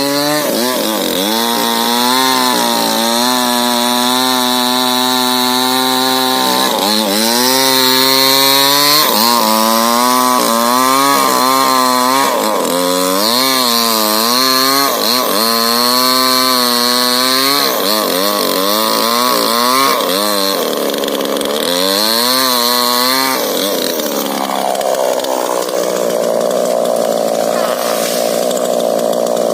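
Two-stroke chainsaw cutting into a rubber tree trunk, running at high revs, its pitch dipping and recovering again and again as the chain bites into the wood. The note turns rougher and less even for the last few seconds.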